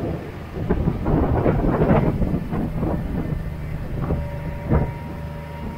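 Farm tractor engine running steadily, with a stretch of rough, loud rattling and knocking noise in the first few seconds and a few sharp knocks later.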